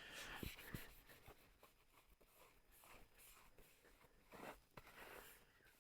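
Near silence in a small room, broken by faint handling noises: a few soft ticks and light scrapes, with a slightly louder scrape about four and a half seconds in.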